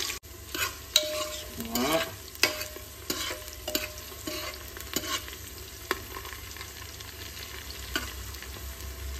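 Chopped onions sizzling in hot oil with whole spices in a pressure cooker pot, stirred with a metal spoon that scrapes and taps against the pot a number of times.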